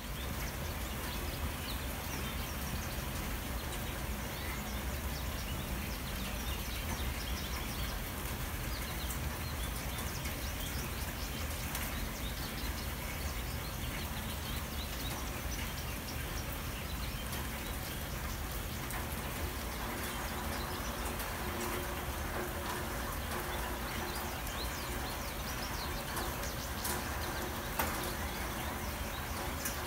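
Steady background noise with a low hum and faint scattered ticks and clicks.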